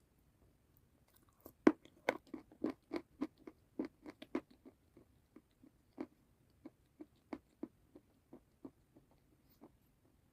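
Close-miked bite into crunchy food about a second and a half in, followed by a run of crisp chewing crunches, about three a second at first, that grow fainter and sparser.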